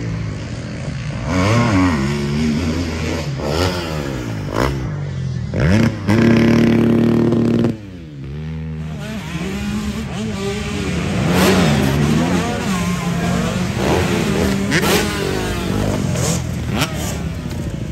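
Dirt bike engines revving, the pitch rising and falling over and over as the throttle opens and closes. About a third of the way in one engine is held at a high, steady rev for a couple of seconds before it cuts off.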